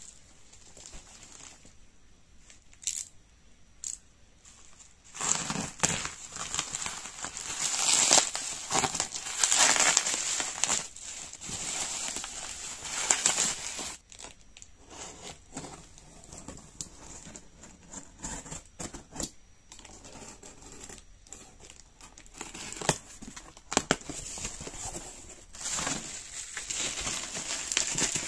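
Packaging being handled and opened: plastic bubble wrap crinkling and rustling, and a taped cardboard box being cut and pulled open, with tearing sounds. Two sharp clicks come about three and four seconds in, and the rustling is loudest over several seconds in the first half.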